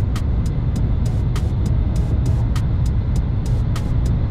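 Inside the cabin of a Kyushu Shinkansen train running: a loud steady low rumble of running noise, with sharp clicks coming about four times a second at uneven spacing.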